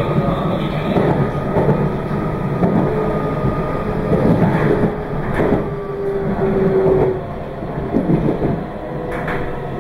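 Meitetsu 2200 series electric train running, heard from on board: a steady rumble of wheels on rail with repeated knocks as the wheels pass over rail joints, and a thin tone that comes in around the middle.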